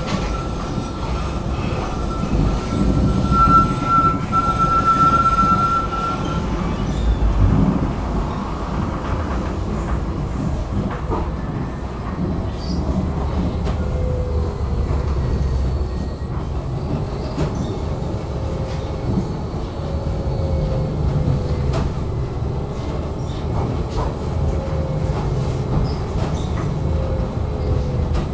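Tram running along its rails: a steady rumble of wheels and running gear. A high steady tone lasts the first six or so seconds, and faint whines rise and fall in pitch later on.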